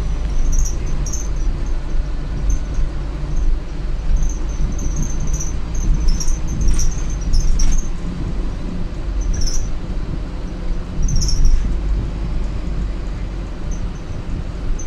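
Inside an Optare Solo M950 single-deck bus under way: the steady low rumble of its diesel engine and road noise, with short high-pitched squeaks coming and going.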